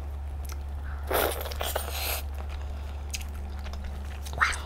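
A person biting into and chewing lobster meat close to the microphone, with two wet, crunchy bites about one and two seconds in. A short rising sound comes near the end.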